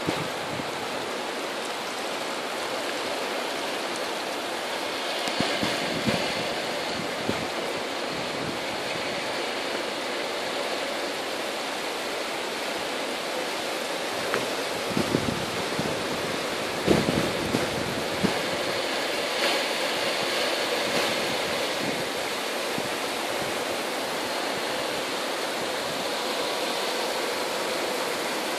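Heavy rain pouring down as a dense, steady hiss. A few sharp close knocks stand out, mostly around the middle.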